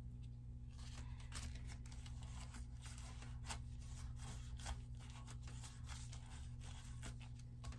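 Faint crinkling of a plastic food-prep glove and soft taps as a gloved hand presses dough rolls into a metal loaf pan, many small irregular rustles over a steady low hum.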